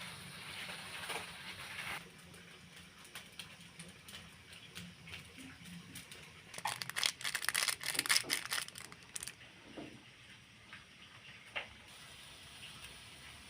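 Light handling noises during cooking: scattered taps and rustles, then a dense run of crackling and clicking about six and a half seconds in that lasts a couple of seconds.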